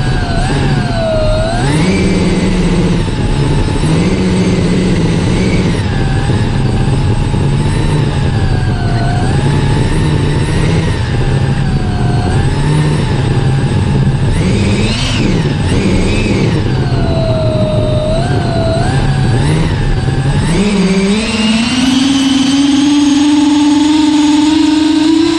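Small model jet turbine on an RC race truck, heard close from on board, running loud with its pitch wandering up and down with the throttle. Near the end it spools up and holds a steadier, higher whine.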